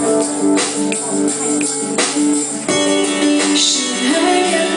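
A woman singing live into a handheld microphone over backing music with guitar and a light percussion jingle.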